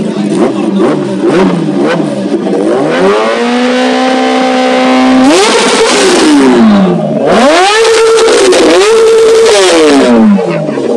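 A Kawasaki Ninja ZX-10R's inline-four engine, fitted with an aftermarket exhaust, idles and is then revved hard while standing still. Three times the revs climb, hold high for a second or two, and fall back.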